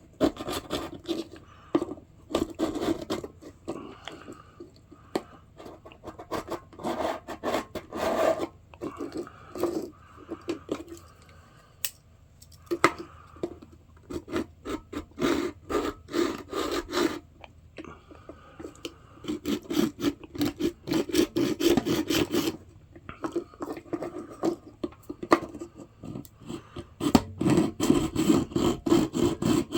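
Sandpaper rubbed back and forth by hand, scuffing a surface to give the glue a grip, in runs of quick strokes with short pauses between them.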